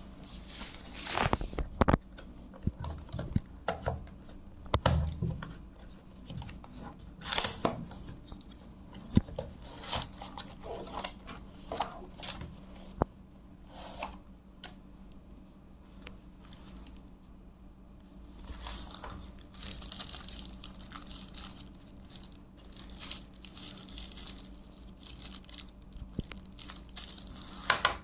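Retail packaging of a lavalier microphone being opened by hand: tearing, crinkling plastic and cardboard being handled, with scattered clicks and knocks. A faint steady low hum runs underneath.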